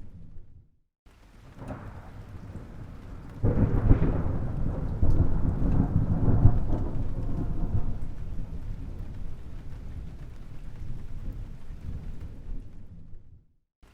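Thunder: after a brief silent gap, a low rumble builds, then a louder peal breaks in sharply about three and a half seconds in and rumbles on, slowly fading. It drops out briefly again just before the end.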